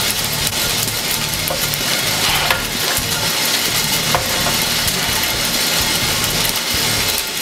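Gas coffee roaster running steadily, with scattered sharp pops and crackles from the beans going through first crack.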